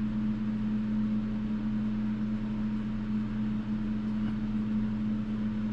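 Steady low electrical hum from a motor or appliance, one strong tone with a weaker lower one beneath it, unchanging throughout.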